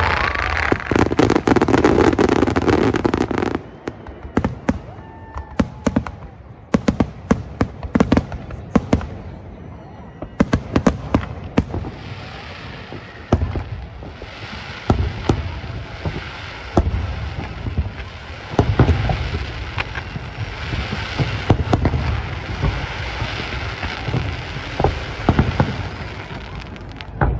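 Fireworks display: many sharp bangs and crackles from aerial shells and ground fountains, coming in quick irregular runs, with a steady crackling hiss from about twelve seconds in.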